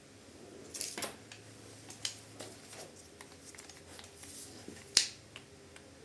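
A series of sharp metallic clicks and light knocks from hand tools and parts being handled during work on a dirt bike's front drive-chain sprocket, with the loudest click about five seconds in.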